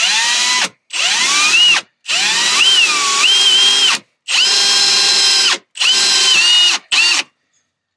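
Power drill boring a hole up into a van's diesel fuel tank for a diesel heater's fuel pickup. The trigger is pulsed in about six short bursts, and the motor's whine rises at the start of several of them as it spins up.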